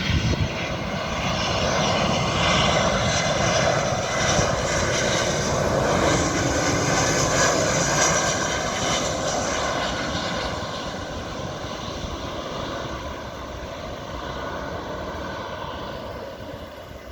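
Airbus A319 twin-jet airliner landing: a loud jet-engine rush with a steady whine on top, loudest a few seconds in and slowly fading as it passes.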